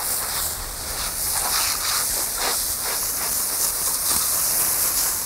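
Garden hose pistol-grip spray nozzle spraying water onto asphalt roof shingles: a steady, high hiss, rinsing F9 rust-remover residue off the roof.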